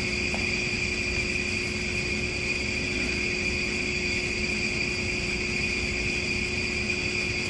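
Steady background hum with a constant high whine, the room tone of a large gymnasium; no drill movements or rifle handling are heard.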